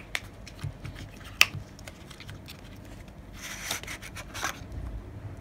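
Paperboard box of an Apple 20W USB-C power adapter being opened by hand: a couple of sharp clicks of the card, then a rubbing, scraping rustle of the flaps and inner tray sliding against each other about three and a half seconds in.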